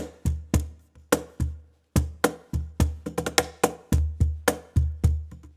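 Schlagwerk 2-in-1 Deluxe cajon played by hand in a groove: deep bass strokes alternating with sharp, bright slaps, with a brief break about two seconds in. It is heard close-miked, without compression at first and compressed later on.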